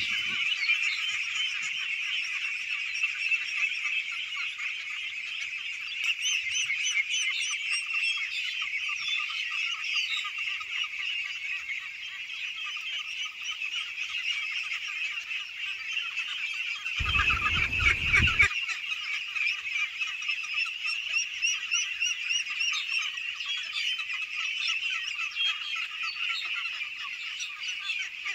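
A huge flock of young domestic ducks calling all at once: a dense, continuous chorus of high-pitched overlapping calls. A brief low rumble cuts in about two-thirds of the way through.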